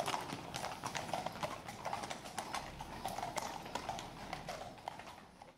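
Several horses' hooves clip-clopping on a paved street at a walk, a stream of irregular sharp clicks that fades near the end.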